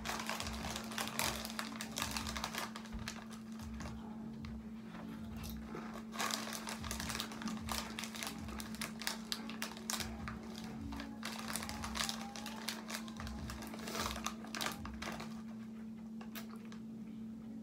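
A foil Doritos chip bag being handled and rummaged in, crinkling in repeated bursts over a steady low hum.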